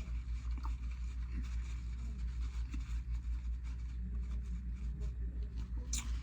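A steady low hum with faint soft clicks and scrapes of someone chewing and eating. There is one brief sharper click near the end.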